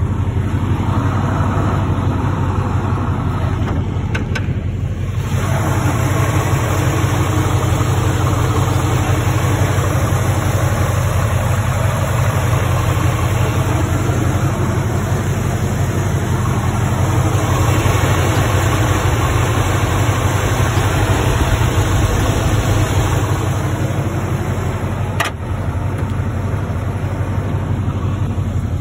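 1970 Chevrolet Impala's engine idling steadily, a low even rumble heard close to the open engine bay.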